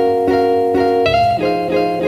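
Background music of plucked string notes, picked in an even pattern about four times a second, changing chord about a second in.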